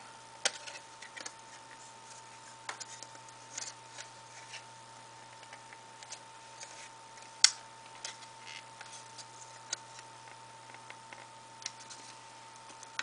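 Plastic phone belt clip with a built-in stand being handled and worked: scattered light clicks and rattles, with one sharp snap about seven and a half seconds in.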